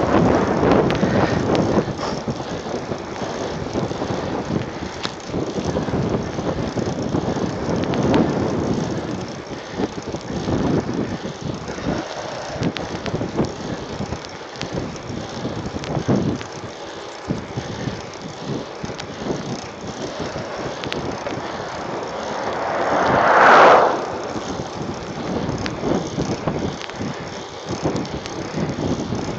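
Mountain bike riding on an asphalt road: tyre noise and wind buffeting the microphone, with the freewheel's ratchet ticking. Near the end a louder whoosh swells for about two seconds and then cuts off.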